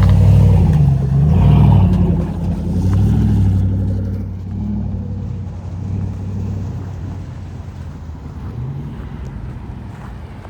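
Car engine revving, its pitch rising and falling, loud at first and then settling into a lower, fading rumble over the last several seconds.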